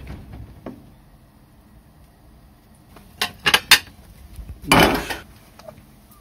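Ceramic dishes clinking: three sharp knocks a little after three seconds in, then a longer clatter about a second later, with quiet rice-paddle handling in the rice cooker before.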